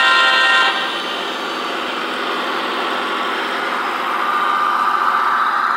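S scale model diesel locomotive's sound system blowing its horn, which stops under a second in. A steady diesel engine rumble follows, along with the running noise of the train rolling along the track.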